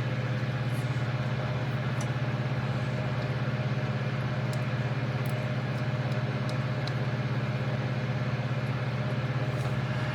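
Steady low hum with fainter higher tones above it, unchanging.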